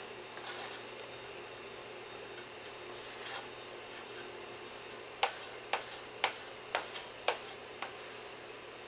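Silicone spatula folding macaron batter in a stainless steel bowl. Two soft scraping swishes come first, then in the second half a run of about seven sharp clicks, roughly two a second, as the spatula strikes the bowl.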